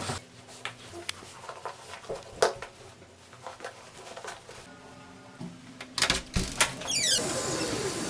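Scattered knocks and shuffling of footsteps and shoes on a hard floor, with a cluster of louder thuds about six seconds in and a short falling squeak soon after.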